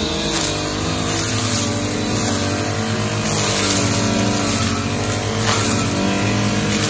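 Petrol grass cutter engine running steadily, its speed wavering slightly.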